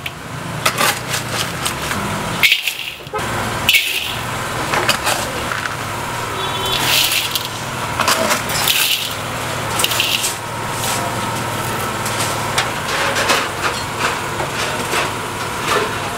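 Coarse rock salt mixed with small stones, scooped from a bucket with a metal bowl and poured into black metal woks: several rattling, hissing pours of grit onto metal. A small engine runs steadily underneath.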